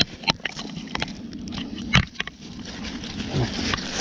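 Leashed hounds and people moving over dry leaf litter: scattered crackling and rustling of leaves and twigs, with one louder knock about two seconds in.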